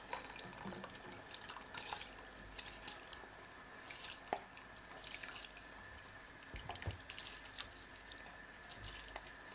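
Faint splashing and dripping as soaked rice and its water are poured into a steel pot of boiling water, with light scattered clicks of a spatula scraping the grains out of the bowl.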